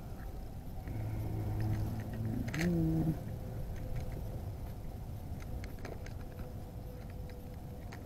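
Small clicks and rattles of hooks and lures being picked through in an open plastic tackle box. About a second in, a low, drawn-out voice-like tone sounds, steps up in pitch and stops near the three-second mark.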